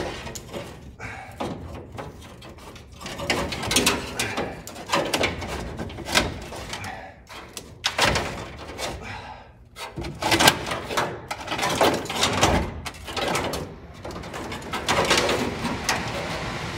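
Hands working wiring harness leads and cables behind a bare metal car dashboard: rustling with irregular clicks and knocks, and a few louder knocks in the second half.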